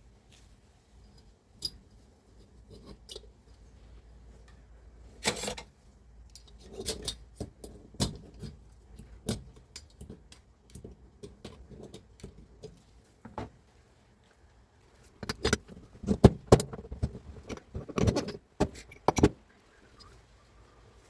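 Hand tools and metal parts being handled, in scattered metallic clinks and knocks. A loud flurry of knocks comes about three-quarters of the way through.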